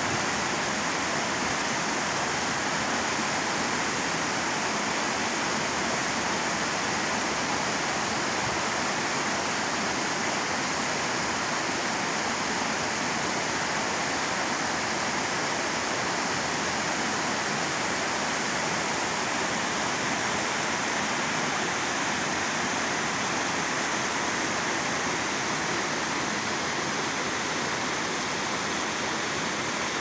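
Water spilling over a concrete weir and churning white in the pool below: a steady, even rushing.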